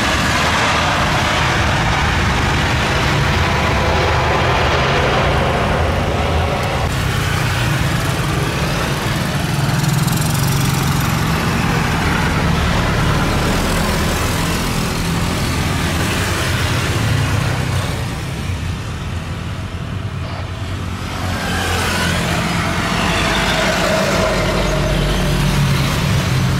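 Airbus A320 airliners' jet engines during landing and runway rollout: a loud, steady rush with a low hum beneath. The sound changes abruptly twice as one aircraft gives way to the next, and dips briefly about two-thirds of the way through.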